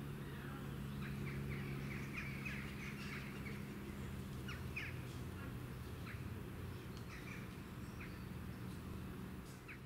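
Small birds chirping: short, quick calls in a run over the first few seconds, then scattered ones, over a steady low hum.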